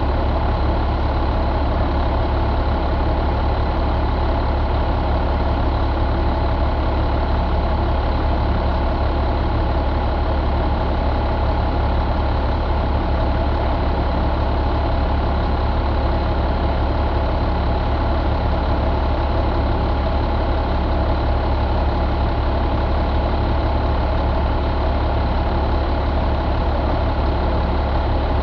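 International DT466E inline-six turbo diesel engine idling steadily, a deep, even running sound that does not change.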